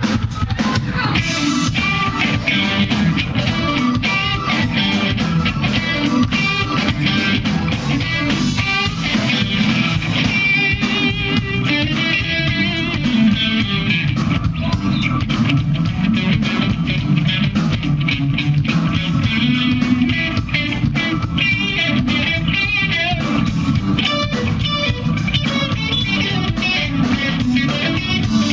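Live funk band playing, with electric guitar lines over drum kit and bass.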